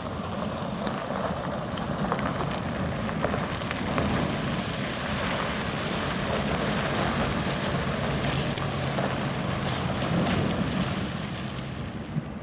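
2000 Ford Econoline E350's 5.4-litre V8 gas engine idling steadily, with a rushing hiss over it.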